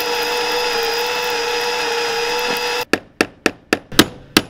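Power drill running steadily as it drills out the center of a stripped Torx bolt head, stopping abruptly near three seconds in. A quick series of about six sharp hammer strikes follows.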